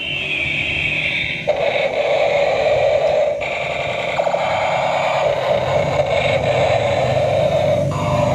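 Battery-powered toy fire-rescue helicopter playing its electronic sound effects through a small speaker: a rapid pulsing tone that switches abruptly to a new pattern every second or few, with a falling higher tone at the start.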